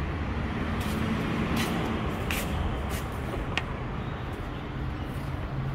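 Steady low rumble of car-park background vehicle noise, with a few faint sharp clicks.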